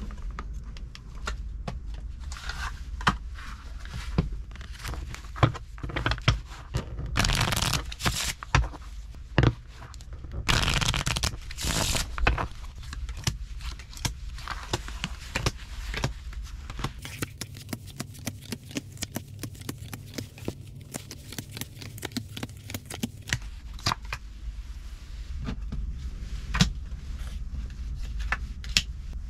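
Close-up handling noise: irregular clicks, knocks and scrapes, with two longer noisy rustles a few seconds apart, over a steady low rumble.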